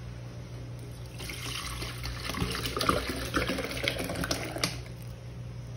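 Milk pouring from a plastic bottle into a plastic blender jar, running for about three and a half seconds from about a second in.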